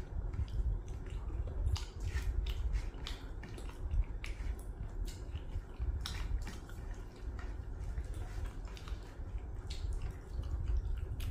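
Irregular wet clicks and squishes of eating by hand, as fingers mix rice and meat on a plate, over a steady low hum.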